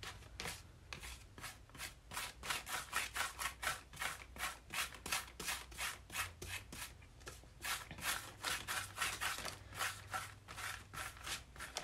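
Paintbrush bristles scrubbing back and forth over paper, spreading a thick layer of glue mixed with glitter: quick scratchy strokes, about three or four a second.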